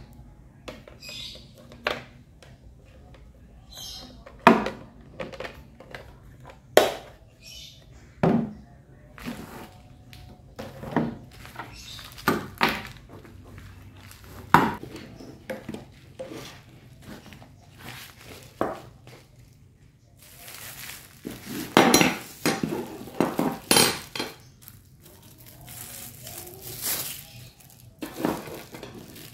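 Kitchen items being handled on a table: scattered clicks and clinks of a pump soap bottle and metal spoons being picked up and set down. Plastic packaging crinkles in several loud bursts about two-thirds of the way through and again near the end.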